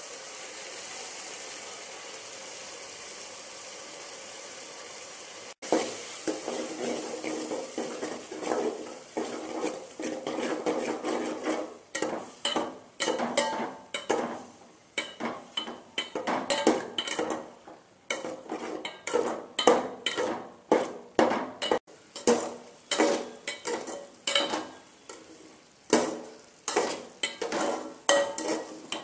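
A spoon stirring and scraping against the inside of an aluminium pressure cooker, in sharp strokes about once or twice a second, over a steady sizzle of vegetables and mushrooms frying. For the first few seconds there is only the sizzle; the stirring strokes start after that.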